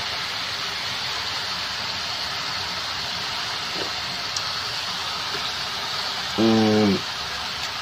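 Stir-fry of sweet mustard greens (choy sum) and meatball slices sizzling steadily in a metal wok. Near the end comes a short hum from a person's voice.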